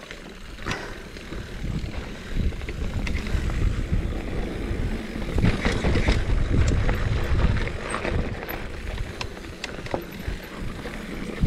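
Mountain bike descending a dirt and rock singletrack: tyres rumbling over the ground and wind buffeting the microphone, with scattered clicks and rattles from the bike. The rumble grows a couple of seconds in and is heaviest through the middle, then eases.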